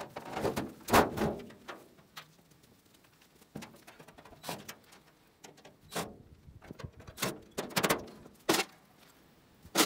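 Irregular knocks and clanks of sheet metal as gloved hands work inside a gas dryer's cabinet, pulling out leftover wiring for scrap. About ten separate knocks, the loudest about a second in.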